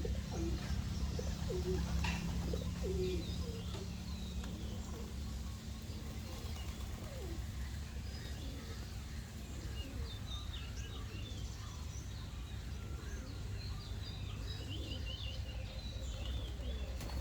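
Doves cooing in the first few seconds, with small birds chirping and twittering throughout, thickest in the second half. A steady low hum runs underneath.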